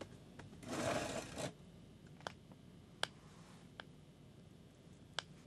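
A short rustling noise lasting about a second, then a few sparse, sharp clicks over quiet room tone.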